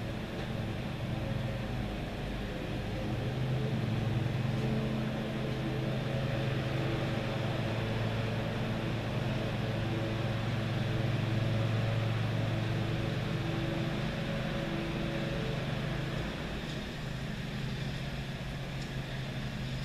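An engine running steadily: a low, even hum that grows a little louder toward the middle and drops back about sixteen seconds in.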